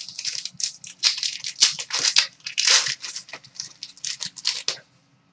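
The wrapper of a hockey card pack being torn open by hand: an irregular run of rustling and tearing that stops shortly before the end.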